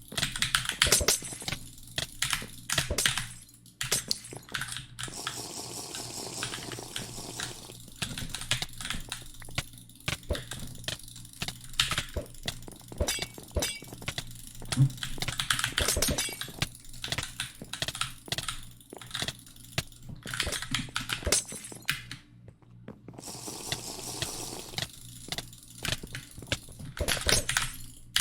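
Series of sharp clicks at an irregular pace, some coming in quick runs and others spaced out, with short quieter gaps between runs.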